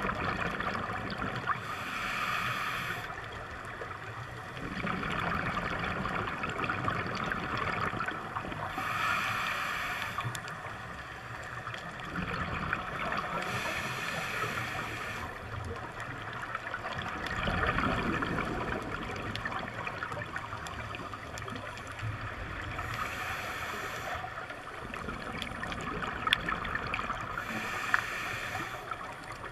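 Scuba diver breathing through a regulator underwater: a hiss with each of five inhalations, and bubbling of exhaled air between them.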